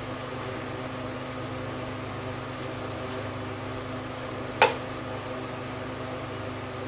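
A steady machine-like hum holding one pitch, with one sharp click about four and a half seconds in, as a removed water-pump bolt or other small metal part is set down.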